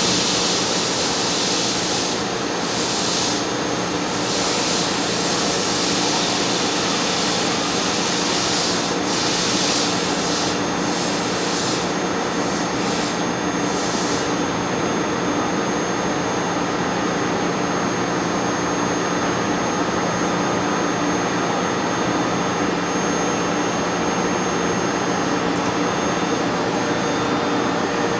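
Later-type MH3096-1600S screw air compressor on a 209-series train running steadily, with a vacuum-cleaner-like drone and several held whining tones. Bursts of high hissing come and go over the first half and stop about halfway through, leaving the steady run.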